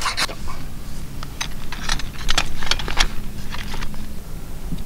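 A ferro rod is scraped over fine wood shavings right at the start, then the shavings catch and crackle with sharp, irregular pops as they begin to burn.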